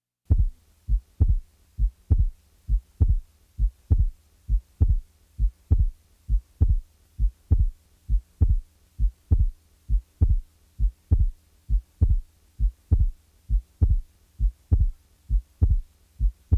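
Recorded heart sounds heard through a stethoscope: a steady, repeating beat cycle of short low thuds, a little over one cycle a second, over a faint steady hum. It is a test example of one auscultation finding, such as a split heart sound, an extra sound or a murmur.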